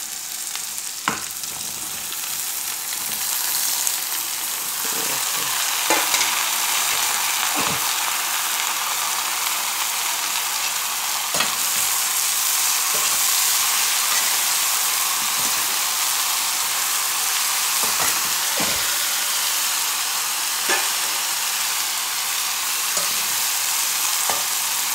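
Sliced ridge gourd sizzling in hot oil over browned onions in a metal kadhai: a steady frying hiss that grows louder over the first few seconds. A slotted metal spatula stirs it, with a few sharp clicks and scrapes against the pan.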